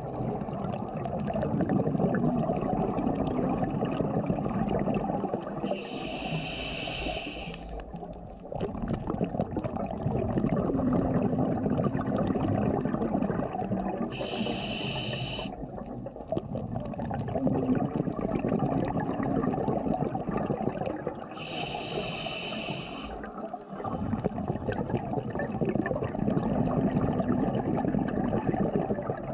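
Scuba diver breathing through a regulator underwater: a hiss on each inhale, three times about seven or eight seconds apart, each followed by a long rumble of exhaled bubbles.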